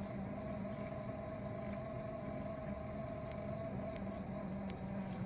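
Miele G6625 dishwasher circulation pump motor running with a steady hum and grinding, the fault the owner suspects comes either from something caught in the pump or from failing motor bearings.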